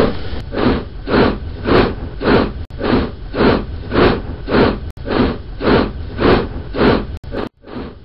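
Steam locomotive exhaust chuffing, the sound of the HO-scale 4-8-4 J-class model: a steady beat of about two chuffs a second that cuts off suddenly about seven seconds in.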